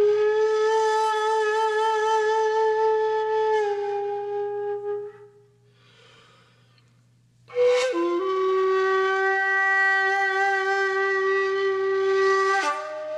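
Slow, mournful-paced wind-instrument music of long held notes with a slight waver. It breaks off for about two seconds of near silence midway, then a new note comes in sharply and is held.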